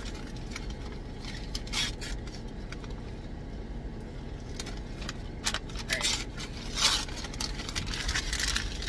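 White wrapping paper being torn and crinkled off a wrapped book in a few short rustling bursts, the loudest about seven seconds in, over a steady low rumble.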